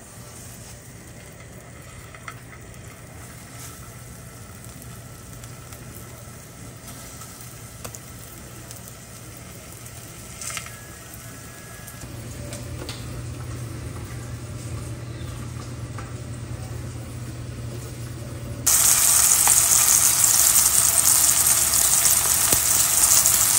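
Cornstarch-coated crappie fillets frying in oil in a frying pan, a steady sizzle. It is soft at first, grows a little louder about halfway through as more fillets go in, and jumps suddenly to a loud, full sizzle a few seconds before the end.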